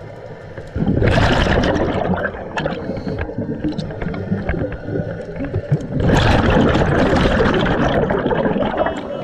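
Scuba regulator exhaust bubbling underwater as a diver breathes out. There are two long exhalations about five seconds apart, each a loud rush of bubbles, with quieter breathing between them.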